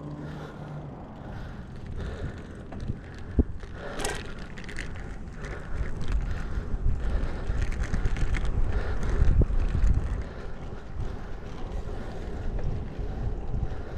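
Bicycle riding on asphalt: tyre rumble and wind buffeting the action camera's microphone, louder from about six seconds in, with a few sharp clicks and rattles, the sharpest about three and a half seconds in.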